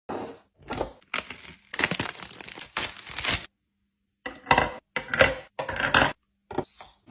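Packaging crinkling and tearing as drinks and sweets are unpacked and handled, in a string of short bursts, each cut off suddenly by a silent gap.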